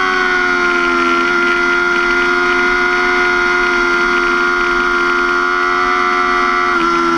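2005 Yamaha R6's 600 cc inline-four engine running steadily at high revs, around 12,000 rpm, at about 105 mph. The pitch drops slightly near the end.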